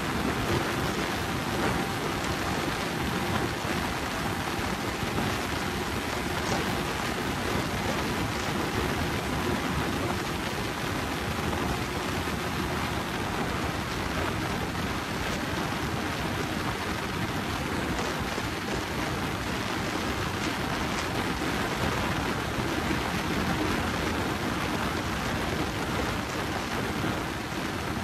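Steady wind rush buffeting the microphone of a motorcycle riding at high speed, with the engine's steady note faintly underneath.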